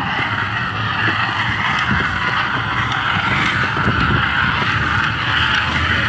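Bike wheel turning with a crushed soda can lodged against the tyre, making a steady scraping hiss as the rubber rubs on the can. This is the friction that burns the tyre.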